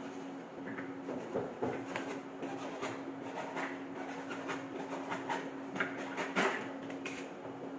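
Hand tools working on a floor drain fitting: a run of short clicks and scrapes, about two a second, the loudest about six and a half seconds in, over a steady low hum.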